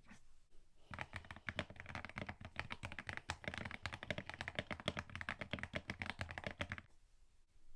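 Fast typing on a custom mechanical keyboard: a dense run of key clacks that starts about a second in and stops about a second before the end.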